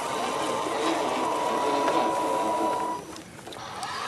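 Small electric winch motor on an RC scale crawler whining steadily as it reels in the line to haul the truck up a rock; the whine cuts off suddenly about three seconds in.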